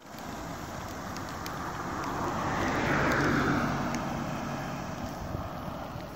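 A car passing by on the road, its engine and tyre noise swelling to a peak about three seconds in and then fading away.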